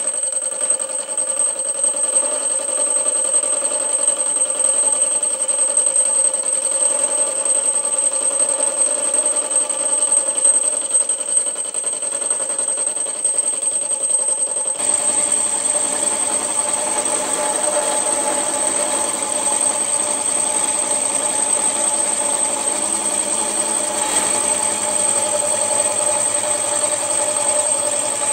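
Milling machine spindle running a gear cutter, cutting gear teeth at half depth in a gear blank, with a steady high whine. About 15 seconds in, the sound becomes fuller and rougher.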